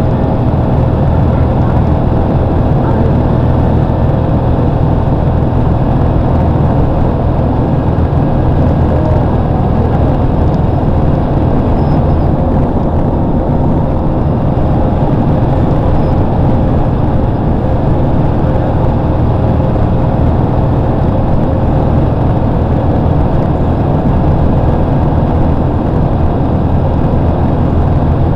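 Steady road and engine drone heard from inside a moving vehicle's cabin at highway speed: a low hum with a faint steady tone above it, unchanging throughout.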